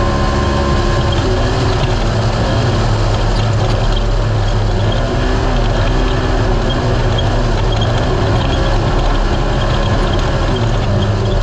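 Naturally aspirated UTV race car's engine running hard, its pitch rising and falling with the throttle, over a steady loud rush of driving noise.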